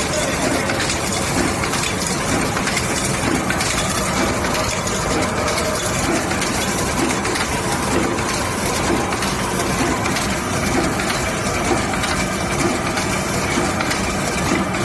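Automatic rotary tube filling and sealing machine running steadily. Its indexing platen and filling and sealing stations make a continuous mechanical clatter with a regular repeating beat.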